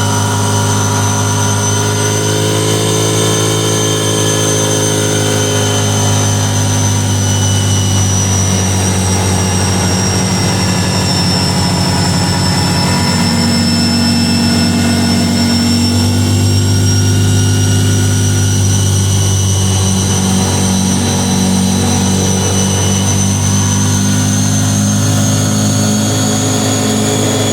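ATV engine running steadily under way: a constant engine hum with a thin high-pitched whine above it that drifts slowly in pitch.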